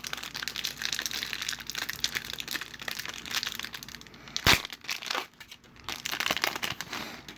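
Trading-card pack wrapper crinkling and tearing as it is ripped open, with one sharp loud crack about four and a half seconds in. The crinkling thins out toward the end.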